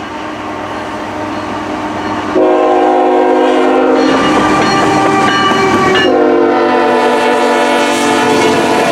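CN freight locomotive's air horn blowing as the train approaches the grade crossing: a fainter steady tone at first, then loud chord blasts from about two and a half seconds in, with short breaks near four and six seconds.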